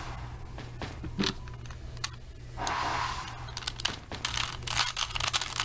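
Plastic Rubik's Cube being twisted by hand: scattered clicks and rattles of the turning layers, coming quick and dense in the last two seconds, with a brief hiss about three seconds in.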